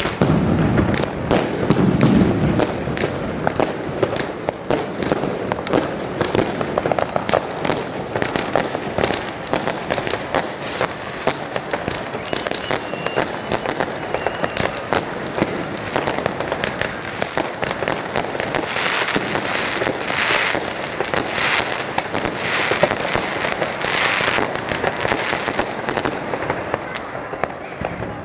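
Fireworks going off in a dense, continuous barrage: many overlapping bangs and crackles, several a second, with a stretch of brighter, sharper cracks about two-thirds of the way through.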